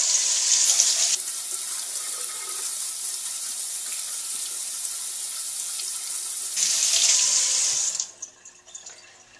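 Kitchen faucet running into a stainless steel sink, a steady rush of water over hands being rubbed together under the stream. The water stops about eight seconds in as the tap is shut off.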